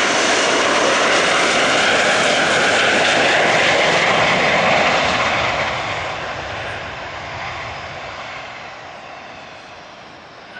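Landing Delta DC-9-family jetliner's engines, loud and steady as it passes close overhead on final approach, then fading steadily from about five seconds in as it moves off toward the runway.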